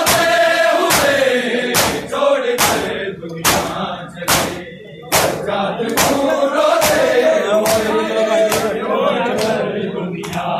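Crowd of men chanting a Muharram mourning chant together, with sharp beats in unison about once a second. The voices fall away briefly about halfway through, then resume.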